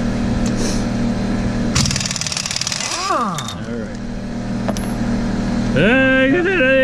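Air impact wrench hammering a wheel's lug nut loose with a steady buzz. About two seconds in it changes to a sharp, airy hiss as it spins freely, then winds down with a falling pitch.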